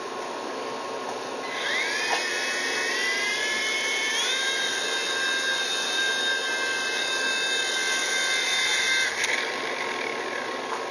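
WL v911 RC helicopter's small electric motors run at full throttle while it carries a 15-gram payload of three nickels. A high whine starts about a second and a half in, rises, steps up in pitch around four seconds in, holds steady, then cuts off about nine seconds in.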